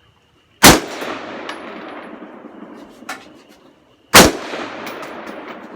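Two single shots from a semi-automatic Ruger AR-15 rifle, about three and a half seconds apart, each followed by a long decaying echo. A short sharp click sounds between them.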